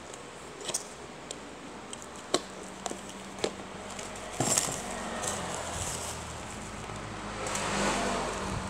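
Cardboard phone box and bubble-wrap packaging being handled: a few sharp clicks, then crinkling and rustling that grows louder near the end, over a steady low hum.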